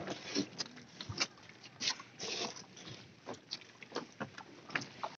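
Irregular scuffs, clicks and short rustles of footsteps and backpacks as people step off a boat onto a rocky, muddy bank.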